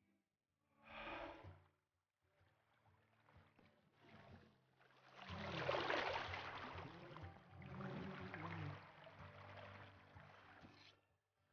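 River water splashing and swirling as a hand dunks and rinses pieces of raw meat in the current, loudest about six seconds in.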